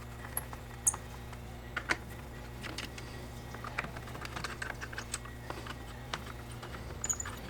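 Light, irregular clicks and ticks of a screwdriver turning out small screws from a plastic tool housing, with the screws and plastic case tapping as they are handled. A dense run of small ticks falls in the middle.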